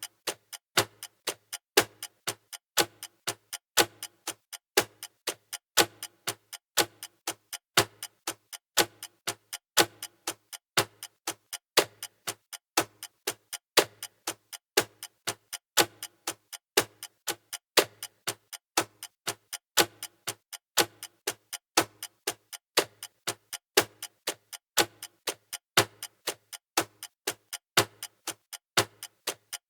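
Clock ticking in a steady, even rhythm, the ticks alternating stronger and weaker in a tick-tock pattern.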